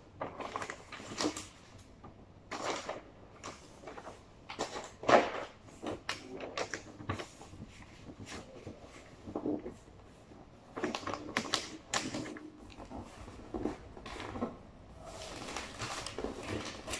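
Wrapping paper rustling and crinkling in irregular bursts as it is folded and pressed by hand against a large cardboard carton.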